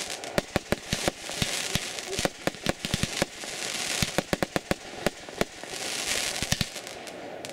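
Fireworks going off: a rapid, uneven series of sharp bangs and crackling stars, several a second, over swells of hiss that build and fade every couple of seconds.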